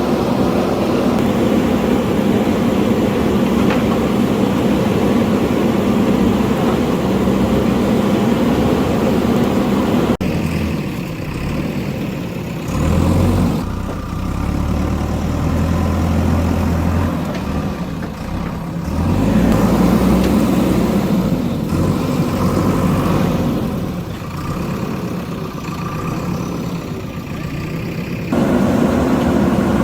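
JCB backhoe loader's diesel engine running under changing load, its sound shifting abruptly about ten seconds in and again near the end.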